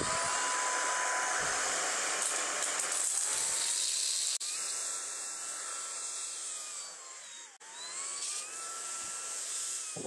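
Corvan K9 Pro cordless stick vacuum running with its motorised floor brush on carpet: a steady high motor whine over a rush of air. About seven and a half seconds in the motor's pitch slides down and climbs back up.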